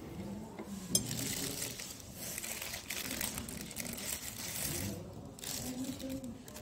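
Restaurant room noise with faint background voices and a single sharp click about a second in, plus light scraping of a fork lifting shredded chicken off a china plate.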